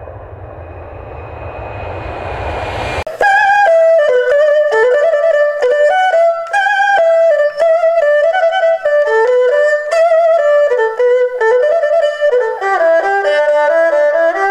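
Aircraft engine noise swelling louder for about three seconds, with a thin whine over a low rumble, then cut off abruptly. Instrumental music follows, a quick-moving melody that changes note every fraction of a second.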